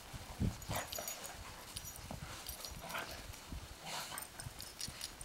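Several dogs moving about and pawing in snow: faint, scattered soft thumps and scuffs of paws, with no barking.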